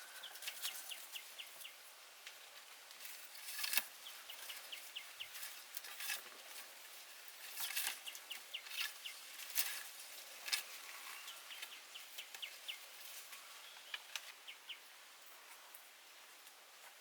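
Outdoor ambience: a bird calling in short runs of quick, high, repeated chirps, several times over, among scattered sharp clicks and taps. The loudest taps come about four seconds in and about ten seconds in.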